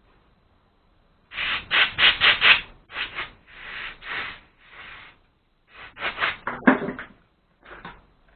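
Rubbing, scrubbing strokes on carburettor parts being cleaned: a quick run of about five strokes a second, then several longer and shorter strokes with short pauses between them.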